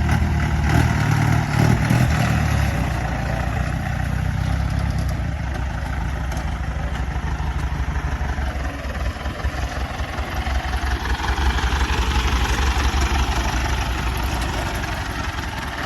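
Jeep engine running under load off-road, louder in the first few seconds, easing off about nine seconds in, then building again.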